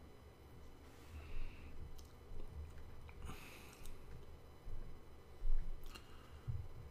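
Faint breaths and mouth noises, with a few small clicks and a soft low bump about five and a half seconds in.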